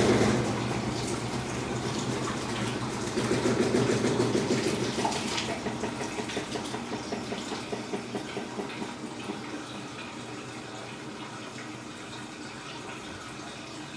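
Electrolux Turbo Economia LTE12 washing machine with water running and sloshing in its tub over a steady low hum. The water sound swells with uneven pulses a few seconds in, then fades gradually.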